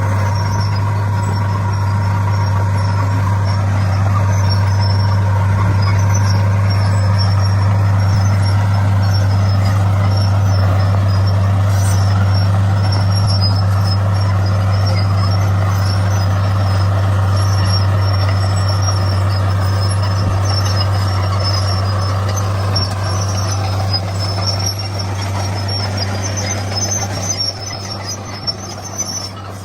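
Komatsu D41 crawler bulldozer's diesel engine running steadily as it works, with a wavering higher whine above the low hum; the sound eases off over the last few seconds.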